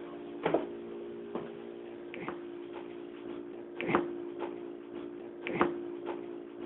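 A steady electrical-sounding hum broken by irregular sharp clicks and taps, the loudest about four seconds in and again about five and a half seconds in. The investigators present this stretch as an EVP of a voice saying "OK".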